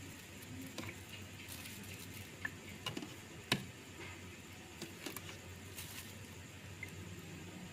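Metal ladle knocking and clinking against a large aluminium cooking pot as it scoops through broth, meatballs and fried tofu. The light taps come irregularly, the sharpest about three and a half seconds in, over a faint steady low hum.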